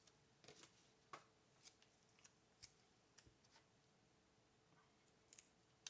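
Near silence with a few faint, scattered clicks and taps of paper: a sticker being peeled from its sheet and laid into a paper planner.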